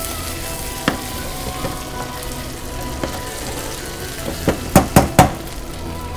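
Brown butter with hickory nuts and sage sizzling in a sauté pan as it is stirred, a steady frying hiss. A single click about a second in, then a quick run of four or five sharp knocks, the loudest sounds, past the middle.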